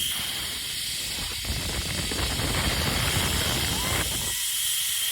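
Steady hiss of a zipline trolley running along the steel cable, with a constant high-pitched tone behind it and a short gliding call about four seconds in.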